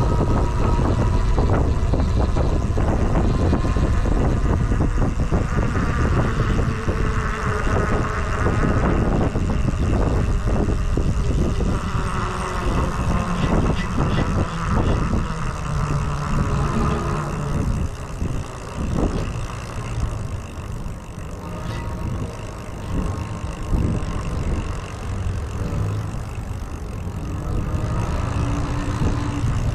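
Road traffic: cars passing, over a steady low rumble of wind and road noise on a camera riding along on a moving e-bike.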